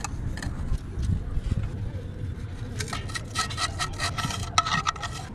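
Scraping and clinking of hand tools or metal parts being worked during an engine repair. Short sharp knocks and scrapes, some with a faint ring, come thick and fast from about three seconds in, over a low rumble.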